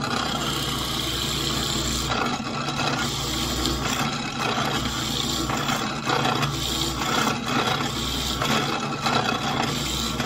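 Drill press running with a 5/8-inch Forstner bit boring a hole into a wooden block. Under a steady motor hum, the cutting noise swells and eases every second or two as the bit is fed into the wood.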